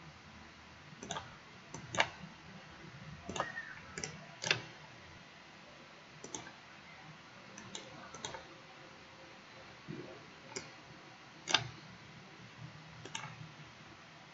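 Computer mouse clicking: faint, irregular single clicks, some in quick pairs, over a low steady hiss.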